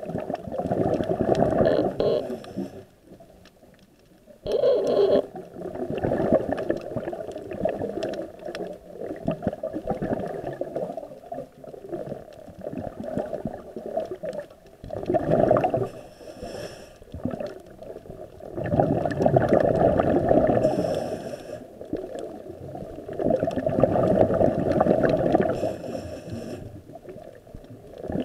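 Scuba regulator breathing heard underwater: surges of exhaled bubbles gurgling past every few seconds, with short quieter pauses between breaths.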